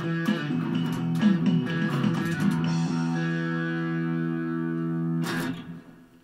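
Guitar playing a line of changing notes, then holding a final chord that rings steadily for about two seconds. About five seconds in the chord is cut off by a short scraping noise and dies away.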